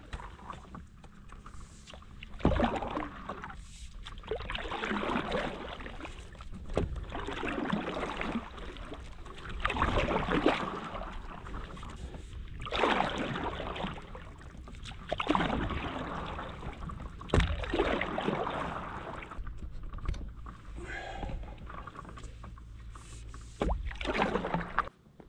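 Stand-up paddleboard paddling: the paddle blade swishes through the lake water in strokes about every two to three seconds. A few sharp knocks come through, and a steady low rumble runs underneath.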